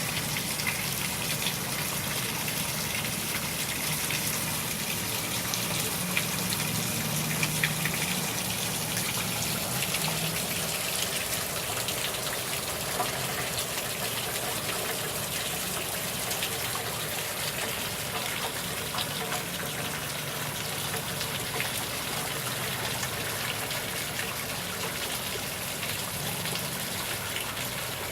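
Steady heavy rain from Hurricane Matthew's storm, with pattering drops and running, gushing water.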